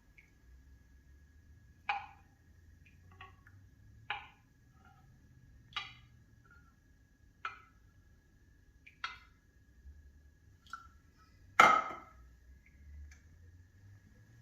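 Scattered light clicks and knocks of coffee-making gear being handled and set down, roughly one every second or two, with one much louder knock near the end. A faint steady high tone runs underneath.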